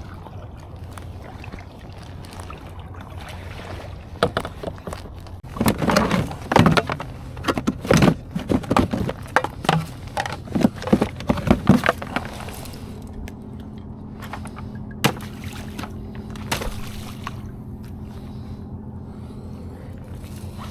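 Water sloshing and splashing around a kayak, with hollow knocks. For several seconds there is a dense run of irregular splashes and knocks. Then it settles and a steady low hum sets in, broken by a couple of sharp clicks.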